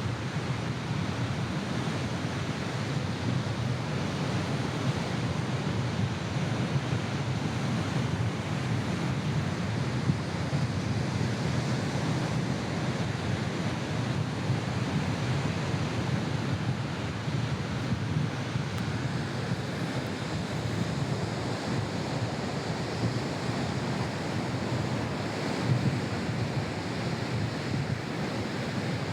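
Steady rush of strong wind with sea surf, the wind buffeting the microphone.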